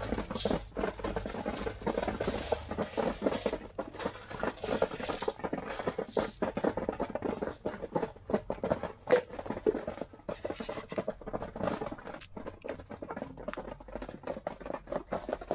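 A flock of Light Sussex chickens pecking at scattered feed on bare earth: a dense, continuous patter of quick pecks and taps.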